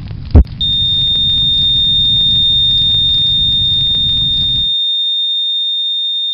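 A smoke alarm sounding one continuous, loud, high-pitched tone, starting just over half a second in and holding steady. Under its start is a low steady hum with a single low thump near the beginning; the hum cuts off suddenly about two-thirds of the way through.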